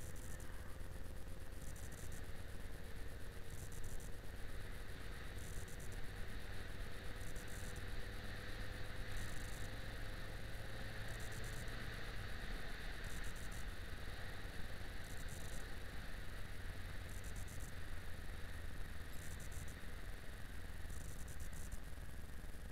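Yamaha XJ6 Diversion's 600 cc inline-four engine running at steady cruising speed, mixed with wind and road noise, heard from a camera mounted on the motorcycle.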